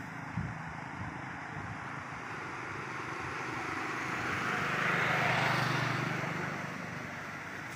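A motor vehicle passing by: its engine and road noise swell to a peak about five seconds in, then fade away.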